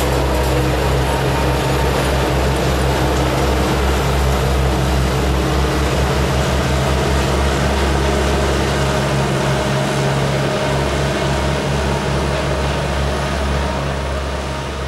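Boeing 787-9's Rolls-Royce Trent 1000 engines at takeoff thrust as the airliner climbs away: a loud, steady jet roar with a heavy low rumble, slowly fading over the last few seconds.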